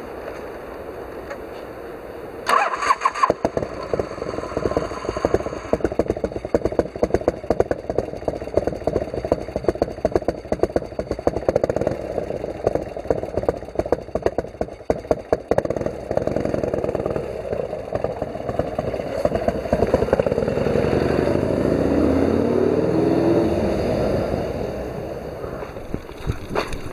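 Harley-Davidson FXR's V-twin engine starting about two and a half seconds in, then running with a rapid pulsing beat. It swells and changes pitch late on.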